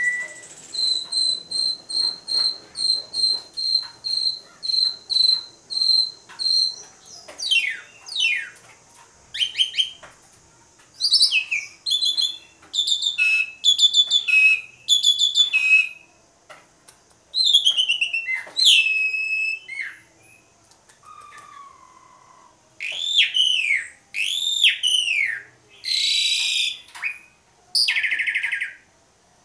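Asian pied starling (jalak suren) singing loudly and in great variety. It opens with a run of about a dozen evenly spaced whistled notes, then moves into falling whistles and clusters of harsh, chattering notes. Near the end come swooping, arched whistles and a few rasping notes.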